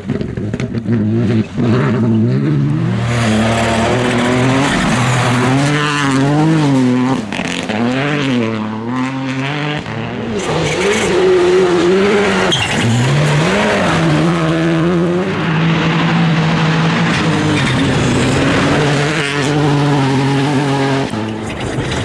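Škoda Fabia RS Rally2's turbocharged four-cylinder engine at full attack on gravel, its pitch climbing and dropping again and again through gear changes and lifts, held steady for a few seconds past the middle. Gravel sprays and hisses from the tyres.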